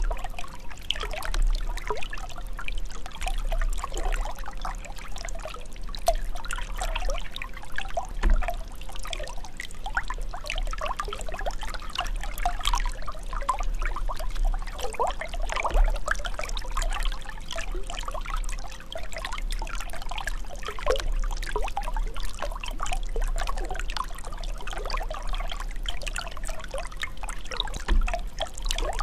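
Running water pouring and trickling without pause, a continuous splashing, bubbling stream with a low rumble underneath.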